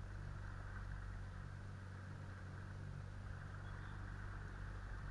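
Small boat's outboard motor running at a steady pitch while under way, with an even hiss over it.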